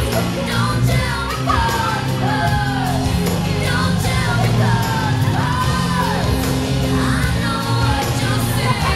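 Music: a solo voice singing a swooping melody over held bass notes.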